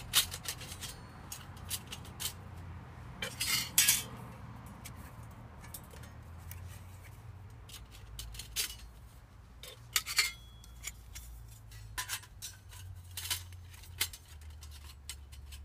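Thin titanium stove panels clinking and scraping against each other as they are handled and their tabs slotted together, in scattered light clicks with a few short clusters of clinks about four seconds in, around ten seconds in, and again toward the end.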